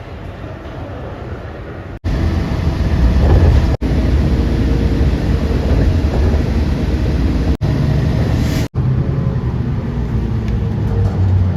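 Aircraft engines rumbling with a steady low hum, cut abruptly several times as short clips are spliced together; quieter for the first two seconds, then louder.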